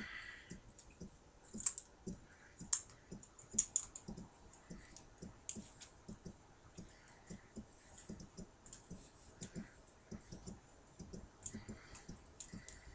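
Faint, irregular small clicks and light rustling of a plastic action figure being handled as a small cloth shirt is worked onto it.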